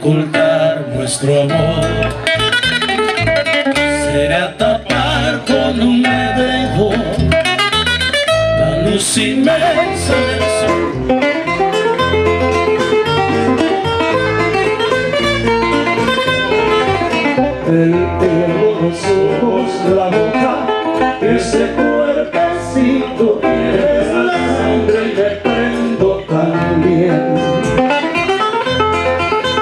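Live acoustic guitar music: two guitars playing quick plucked melody lines over a bass line, amplified through a stage sound system.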